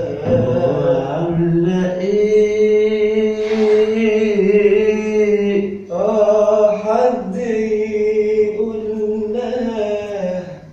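A man singing an Arabic love song, drawing out long held vowel notes with small ornamental bends. There are two long phrases, with a short breath between them about six seconds in.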